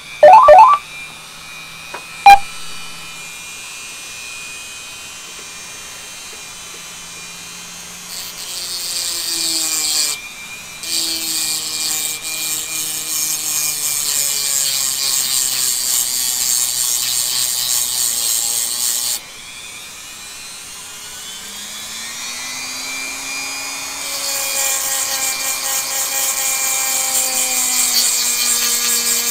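Dremel rotary tool running with a small grinding stone, grinding down the end of an overlong steel pin from a revolver's loading-gate mechanism. It gives a harsh, high grind in two long spells, then again near the end. Between spells the motor runs free and its pitch rises. Two loud knocks come right at the start.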